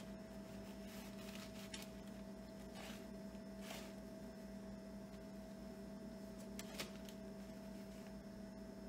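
Steady low hum, with faint brushing of coated onion rings being handled and set onto a wire mesh tray, and a small sharp click a little before the end.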